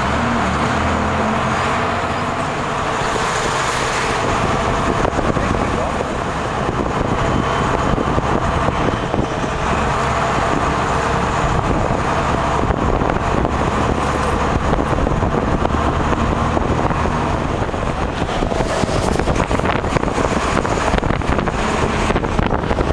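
Steady engine and road noise heard from inside a moving bus: a continuous low rumble with tyre and road hiss.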